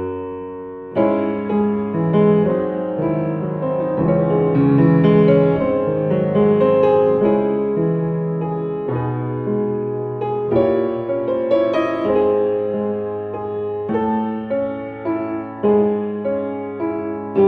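Background music: gentle piano or electric-piano playing chords and a melody at a slow, even pace.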